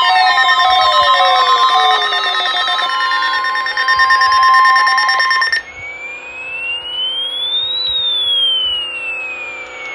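NOAA Weather Radio warning alarm tone, a steady tone near 1 kHz sent as the weekly test of the public warning alarm, mixed with other electronic tones and falling pitch glides. It cuts off about five and a half seconds in, and a single electronic tone then rises slowly in pitch and falls again.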